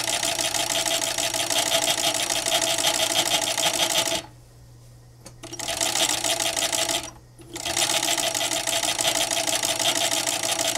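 Fur sewing machine stitching at speed, a fast even run of stitches over a steady motor hum. It stops for about a second after four seconds and briefly again near seven seconds, the hum going on through the pauses, then stitches on.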